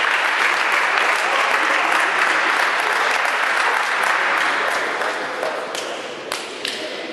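Spectators applauding in the hall, with a dense patter of clapping that fades away over the last two seconds. A couple of separate claps stand out near the end.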